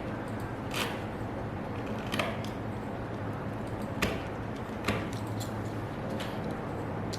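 A steady low hum with about five short, sharp clicks spread across it, the loudest two about four and five seconds in.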